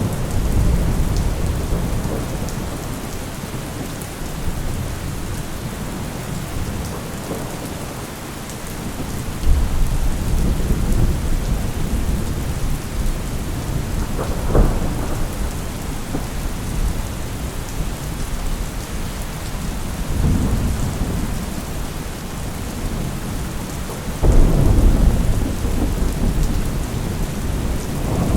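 Thunderstorm: steady heavy rain with several rolls of thunder. The rumbles swell about a third of the way in, in the middle and near the end; the one in the middle comes with a sharper crack, and the one near the end is the loudest.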